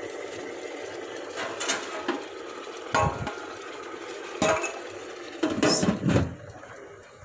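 Electric food steamer running with a steady hiss, while a metal cake tin and the steamer's clear plastic lid are handled in a few sharp clattering knocks, the loudest cluster near the end as the lid goes on.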